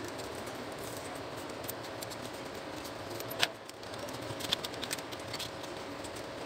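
Small clicks and rattles of a dismantled Epson TM-U220 printer mechanism's metal frame and print head flex cable being handled, with one sharp click about three and a half seconds in. A faint steady hum runs underneath.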